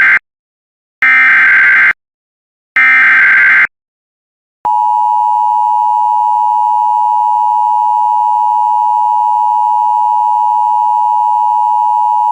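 Emergency Alert System SAME header: the end of one data burst, then two more buzzing digital data bursts about a second each, a second apart. After a short silence the EAS attention signal comes in nearly five seconds in and holds as one steady, loud tone.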